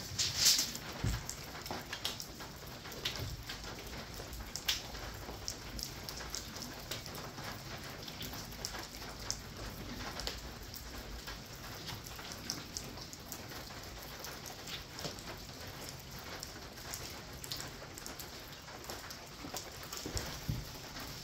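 Steady rain pattering, with many scattered drips clicking throughout and a single louder knock about half a second in.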